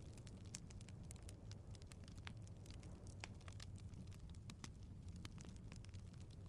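Wood fire crackling, with frequent irregular small pops and snaps over a low, steady rumble of burning logs.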